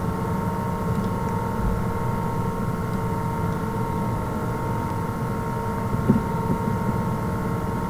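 Steady droning hum with a few constant tones and a low rumble underneath, unchanging throughout.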